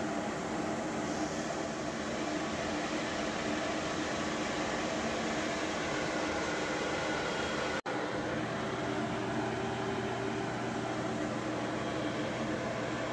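Frigidaire microwave oven running a microwave arc sinter cycle: a steady electrical hum with fan noise. The sound cuts out for an instant about eight seconds in, then goes on with a stronger low hum.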